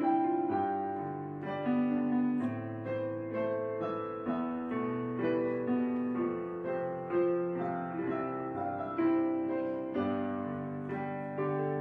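Background piano music: a slow piece of struck chords and melody notes, a new note or chord about once a second.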